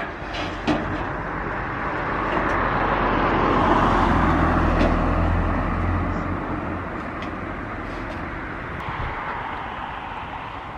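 Outdoor road traffic noise, with a vehicle's engine and tyres swelling as it passes about four seconds in and then fading. A sharp click at the start.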